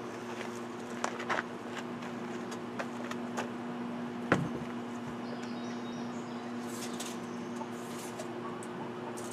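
Scattered wooden knocks and clatters as a rough cedar slab is handled and set down against a wooden frame, with one sharp knock about four seconds in. A steady low hum runs underneath.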